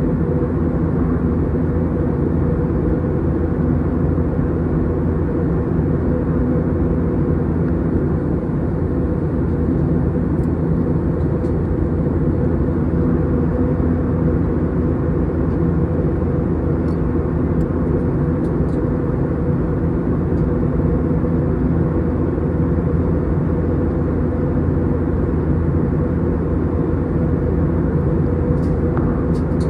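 Steady cabin drone of an Airbus A321's IAE V2500 turbofans, heard from a window seat: a low rumble with a few steady humming tones and no change in level.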